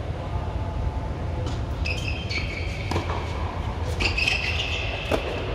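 Steady low rumble of the air-supported tennis dome's blower. Over it, short high shoe squeaks on the hard court come about two and four seconds in, with a couple of light knocks.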